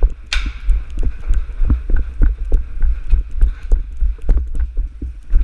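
Thudding footsteps, about three to four a second, picked up through a body-worn action camera, with a heavy low rumble from movement and wind on the microphone; one brief sharp noise about a third of a second in.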